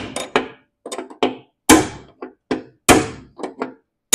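Hammer striking a steel punch set in a mower deck spindle bearing, knocking to drive the spindle bearing out: about ten sharp metallic blows at an uneven pace, two to three a second, some harder than others.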